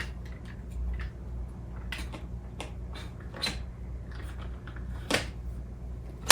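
Hard plastic stroller parts being handled and fitted together: scattered light clicks and knocks, the sharpest about five seconds in.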